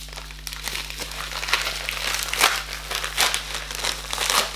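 Small shipping envelope being handled and opened by hand: a continuous run of irregular crinkling rustles.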